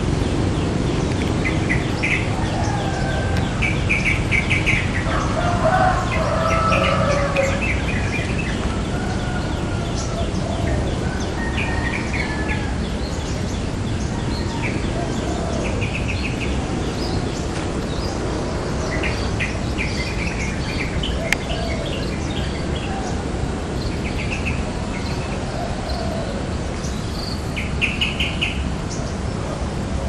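Yellow-vented bulbuls and other birds calling in the trees. Short, rapid chattering bursts come every few seconds, and from a few seconds in there are bubbling, warbled phrases, all over a steady low background rumble.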